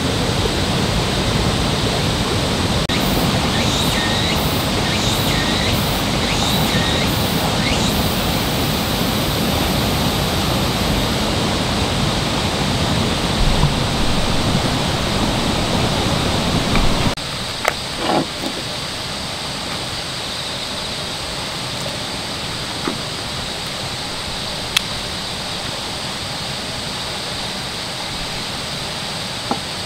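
Steady rushing outdoor noise, like flowing water, with a run of faint high ticks nearly two a second in the first part. About halfway through it drops abruptly to a quieter steady hiss, followed by a few light knocks and, later, single soft clicks.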